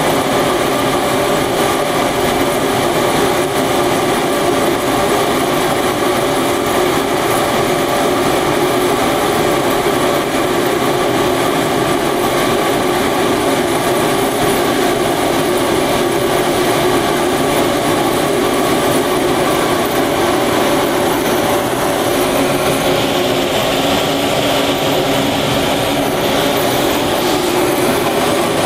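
Cremation furnace burning: the burner and its blower running with a steady rushing noise and a hum, and a higher hiss that comes up about two-thirds of the way through.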